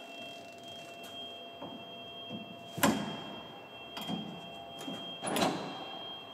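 Metal knocks and clicks of a hydraulic hose multi-coupler being set onto its mounting plate on a combine: a sharp knock about three seconds in, another about five and a half seconds in, and lighter clicks between.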